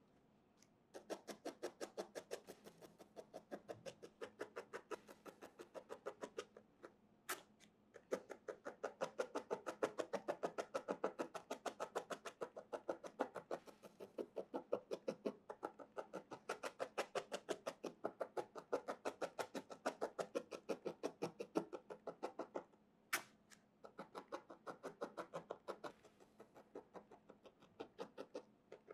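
A barbed felting needle stabbing rapidly into wool on a foam felting pad: a steady run of soft, crisp pokes, about four or five a second, compacting the fibres. The run breaks off twice, briefly, and each break has a single sharper click.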